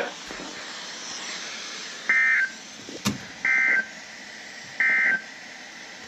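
Midland weather radio sending three short bursts of warbling two-tone data about a second apart over a low static hiss. These are the SAME end-of-message bursts that close an Emergency Alert System weather warning. There is a single click between the first and second burst.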